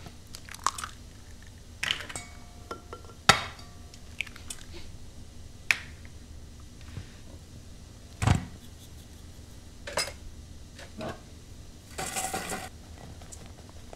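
A stainless steel mixing bowl and small dishes handled on a steel kitchen counter: a series of separate knocks and clinks, one ringing briefly, and a short rustling scrape near the end.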